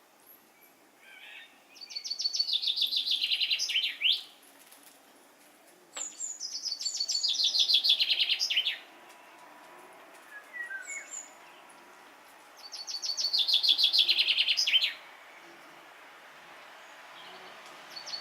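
A songbird singing three rapid trilled phrases, each a fast run of notes lasting two to three seconds and dropping in pitch toward its end, several seconds apart. A few faint short chirps come in between.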